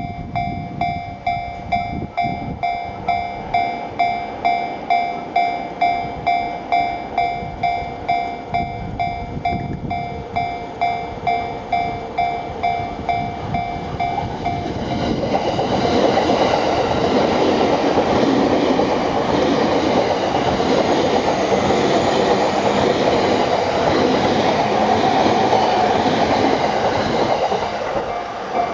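Japanese level-crossing alarm bell ringing at about two strikes a second. About fifteen seconds in, a Yamanote Line E231-series electric commuter train passes over the crossing, and its steady running and wheel noise on the rails covers the bell.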